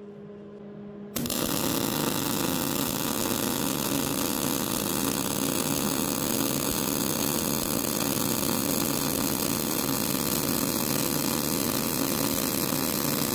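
Miller-Matic 185 MIG welder's arc striking about a second in and running a long bead with a steady frying-bacon buzz. The wire feed is set at 80, the sweet spot, so the arc runs smooth without spitting and sputtering.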